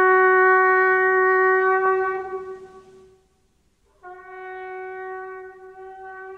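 A shofar (animal horn) blown in one long, steady note that fades out about three seconds in. After a brief gap, a quieter long note at the same pitch begins about four seconds in.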